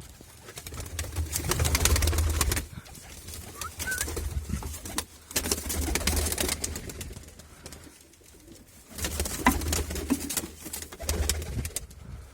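Baku pigeons cooing, with repeated low rumbling surges over them that are loudest about two seconds in.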